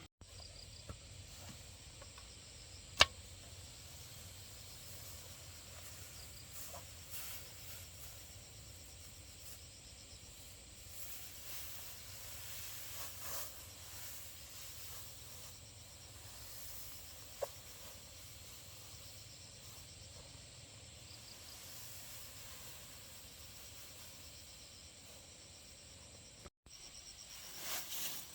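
Quiet outdoor ambience with insects chirping. A single sharp click about three seconds in, and a softer tick later on.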